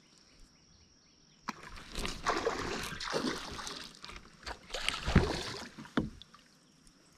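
Water splashing at the surface as a gar strikes a small topwater spook lure. It starts suddenly about a second and a half in, with a second burst around five seconds and a sharp hit near six.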